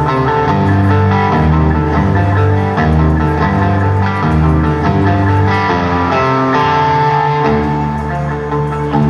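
Live rock band playing a slow passage: guitar lines over held bass notes that change every second or so.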